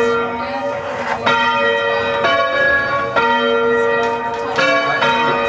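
Church tower bells rung by hand on ropes, struck one after another about once a second at different notes, each stroke ringing on until the next.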